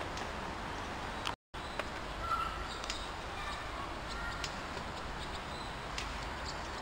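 Steady outdoor background noise with a few faint, short high chirps. The sound drops out completely for a moment about a second and a half in.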